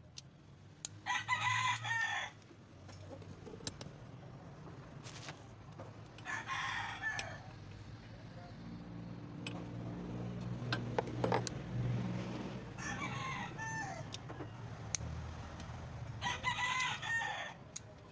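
A rooster crowing four times, each crow about a second long and falling in pitch at the end.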